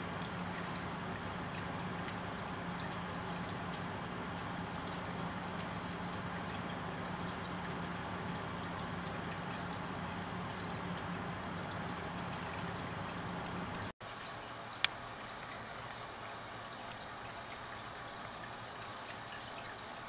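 Steady rushing outdoor background noise with a low hum. About 14 s in it cuts out for an instant and comes back quieter, followed by a single sharp click. A few faint, short, high bird chirps come near the end.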